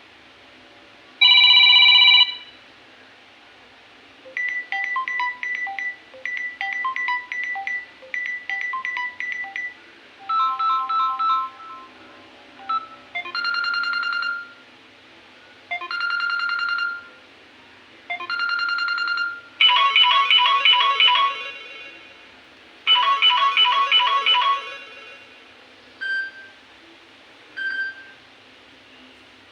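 Samsung Galaxy A04e stock ringtones playing one after another as short snippets. Each is a brief electronic melody lasting about one to two seconds, with short pauses between them. The loudest is a bright chord burst about a second in.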